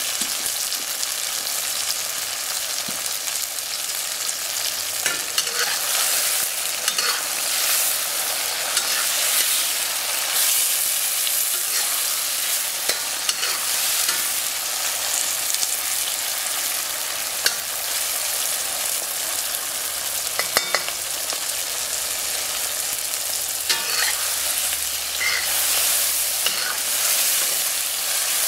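Sausage slices, peppers and tomatoes sizzling in hot oil in a wok, a steady hiss. From a few seconds in, a metal spatula stirs them, scraping and clinking now and then against the wok.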